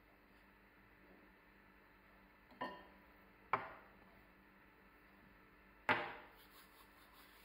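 Three sharp clinks with short ringing tails, about two and a half, three and a half and six seconds in, the last the loudest: a metal teaspoon and small glass spice bowls knocking against a ceramic bowl and the tabletop.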